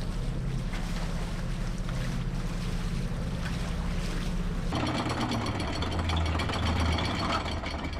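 Catamaran under way: a steady low drone with wind and water noise. About two-thirds of the way through, it cuts suddenly to a different sound of rapid, even mechanical ticking over a low hum.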